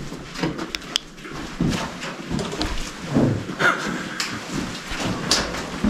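Footsteps scuffing and crunching irregularly on the wet, stony floor of a mine tunnel, with a few sharp clicks about a second in.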